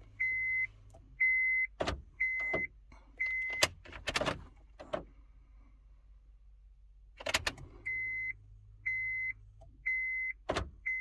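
Electronic beeps, each about half a second long, repeating about once a second, stopping for a few seconds in the middle and then starting again. Between them come sharp clicks and rattles as a key is turned in a 2007 Honda Civic's ignition switch, whose cylinder is worn and stiff.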